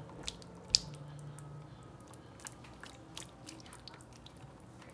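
Sauced spaghetti with vegetables sliding and plopping out of a bowl into a glass baking dish: soft wet squelches and small scattered clicks, with one sharp click about three-quarters of a second in.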